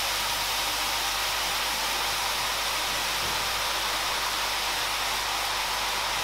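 Gram-flour batter dripping through a perforated boondi ladle into hot oil, giving a steady sizzle of deep frying.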